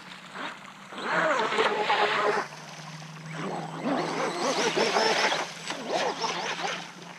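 People's voices talking and exclaiming in bursts, over a steady low hum.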